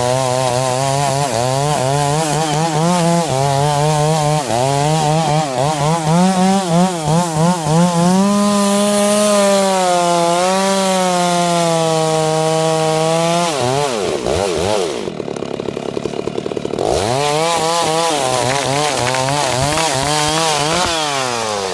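Chainsaw running at high revs and cutting wood, its pitch wavering and stepping as the load on the chain changes. About two-thirds of the way through it drops off and revs back up, then cuts on.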